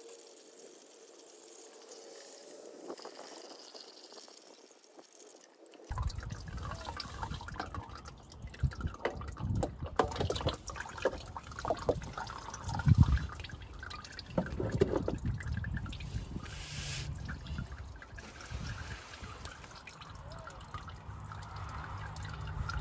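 Engine oil dripping and trickling at the oil filter of a 2017 Ford F-250 Super Duty 6.2L as the spin-on filter is taken off and the oil drains out. It is faint at first, then from about six seconds in comes with irregular knocks and rustling of hands at the filter mount.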